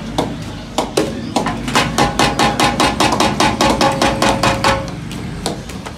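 Rapid metal clanking on steel cookware, about six strikes a second for some three seconds, each strike ringing on. A few single knocks come before the run.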